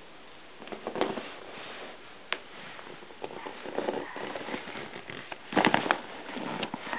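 A baby handling a shiny printed play tunnel toy: irregular bouts of rustling and crinkling, with a sharp click about two seconds in and the loudest rustle a little before the end.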